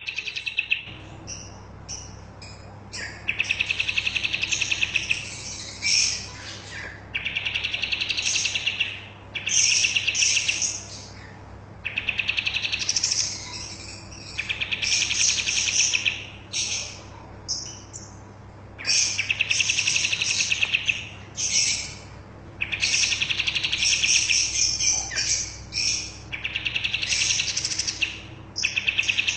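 Pied triller (kapas tembak) singing in full, frequent song: a dozen or so loud, rapid trilling phrases, each a second or two long, with short pauses between.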